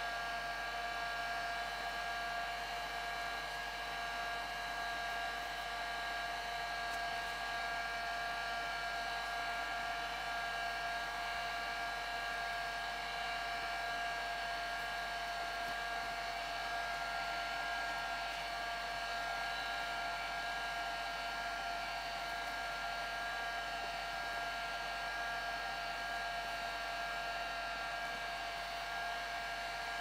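Electric heat gun running continuously, a steady airflow hiss with a constant whine from its fan motor, as it heats craft foam to soften it for shaping.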